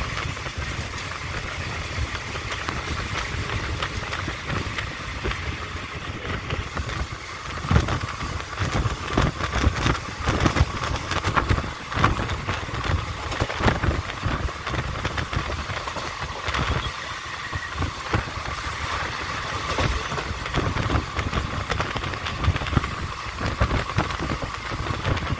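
Passenger train running along the track, heard from inside the carriage: a steady rumble and rattle of wheels on rails, with frequent clacks and knocks through the middle stretch.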